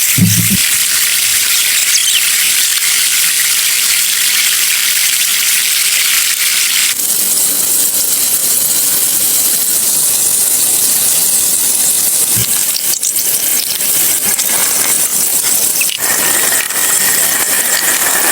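Steady rush of a flowing stream, a loud hiss-like water noise that shifts abruptly in tone twice.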